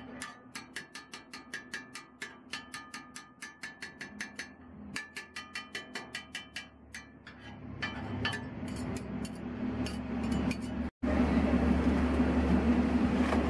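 Metal spatula blade rapidly chopping crumbled meat on a flat steel griddle: sharp, ringing metal-on-metal clicks about five a second. About eleven seconds in it cuts off and is replaced by a steady, louder background din with a low hum.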